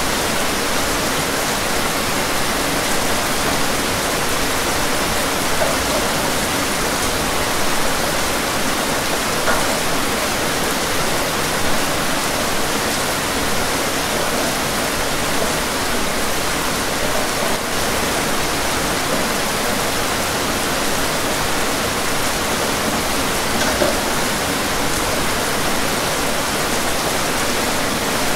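Steady rain, a dense even hiss with a few faint drop ticks.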